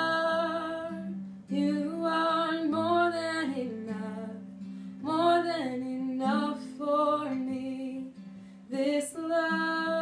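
A woman singing a slow worship song in long held notes, playing along on an acoustic guitar.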